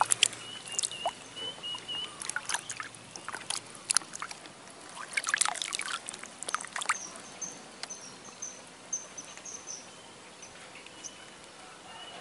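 Small water splashes and drips from wading and handling in shallow water, frequent for the first seven seconds or so and then thinning out, over a faint thin high chirping.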